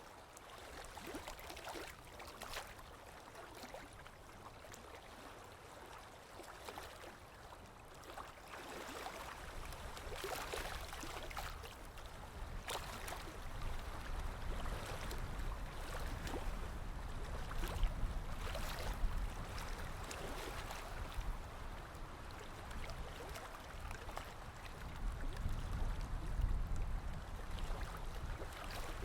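Sea waves washing in, with splashing and lapping water over a low rumble that swells louder twice, a little past the middle and again near the end.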